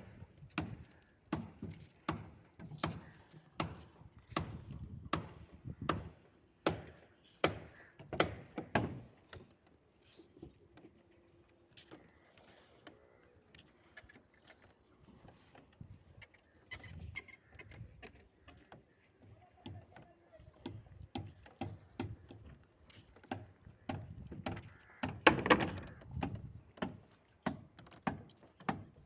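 Manual construction work: repeated knocks and thuds of tool strikes, a little over one a second. There is a quieter stretch in the middle, and the loudest strikes come near the end.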